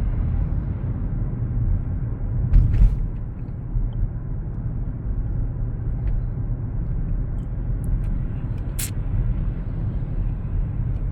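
Steady low rumble of a car driving, heard inside the cabin, with a short knock about two and a half seconds in and a brief sharp click near the end.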